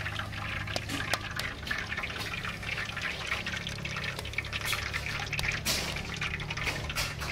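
Cooking oil heating in a large aluminium cooking pot over a wood fire: a dense, irregular spitting crackle, with a steady low hum underneath.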